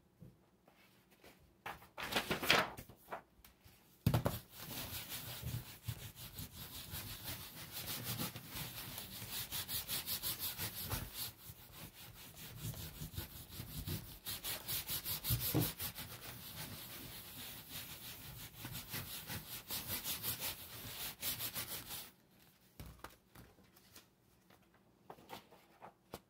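A sheet of paper rubbed by hand over a wet painted panel in quick back-and-forth strokes to take a monoprint. A short rustle about two seconds in comes before long, steady rubbing that stops a few seconds before the end.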